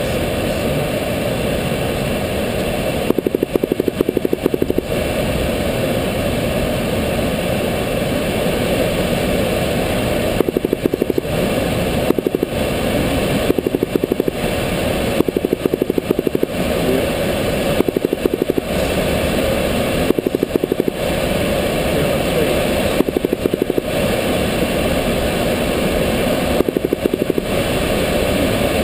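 Engine and propeller of a single-engine light aircraft droning steadily, heard from inside the cockpit during the climb after takeoff. Every few seconds a rapid pulsing comes in for about a second and fades again.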